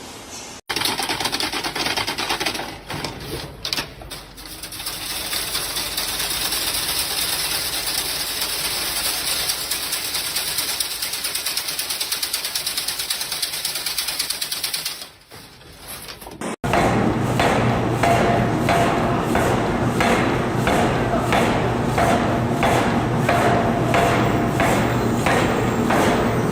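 Machinery running: first a dense, rapid, even clatter, then, after an abrupt change about 16 seconds in, a machine striking in a steady rhythm about twice a second over a hum.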